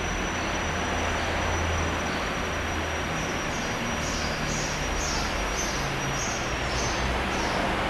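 Steady background noise with a low rumble; from about three seconds in, a run of short high chirps repeats roughly twice a second.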